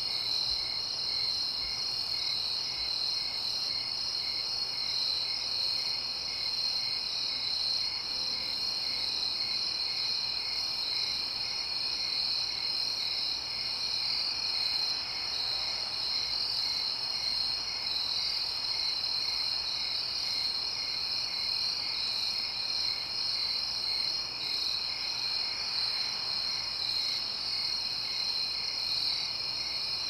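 Crickets chirping at night in a steady high trill, with a second, slower chirp repeating about twice a second. Faint distant traffic hums beneath.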